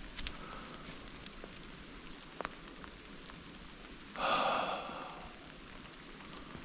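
Steady rain pattering on forest leaves, with scattered single drips. About four seconds in comes one harsh call lasting about a second, a common raven croaking.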